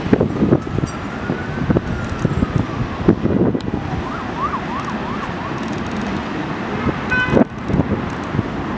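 An emergency-vehicle siren wailing slowly up and then down, then switching to a fast yelp, over the low rumble and wheel clatter of an R62A subway train approaching on elevated track. A short horn note sounds about seven seconds in.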